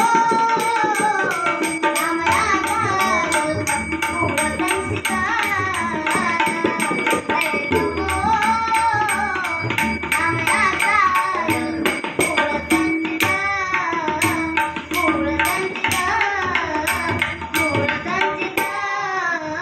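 Music: a voice singing a flowing melody over a steady beat of drum strokes, fading out near the end.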